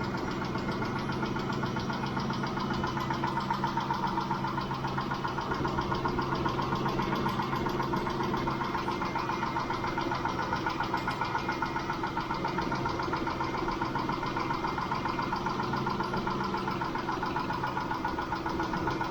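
Mitsubishi 6G72 V6 idling a few minutes after starting, with a steady, rapid ticking from the hydraulic valve lifters that the lifter additive in the oil has not cured. The owner suspects it may be a single worn lifter.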